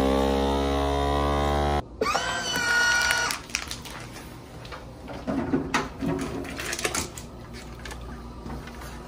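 Countertop vacuum sealer's pump motor running steadily, cutting off abruptly about two seconds in. A brief rising whine follows, then scattered clicks and knocks of handling plastic.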